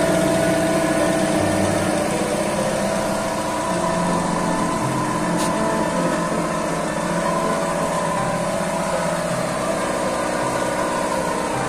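Steady machine running with an even, engine-like hum.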